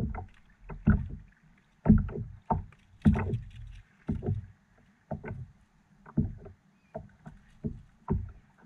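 Water slapping and splashing against a small boat's hull in short, irregular knocks, roughly one a second.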